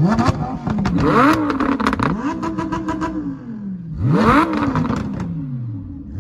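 Lamborghini Huracán's 5.2-litre V10 revved hard while parked, with about four sharp rev blips that each climb quickly and then fall away. Sharp crackles come through around the revs.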